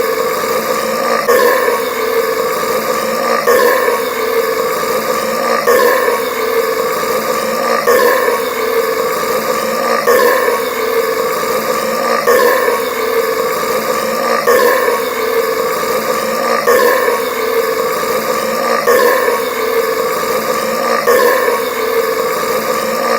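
A long burp from drinking carbonated Sprite Cranberry soda, played on a loop so that it repeats about every two seconds, each repeat starting with a louder onset.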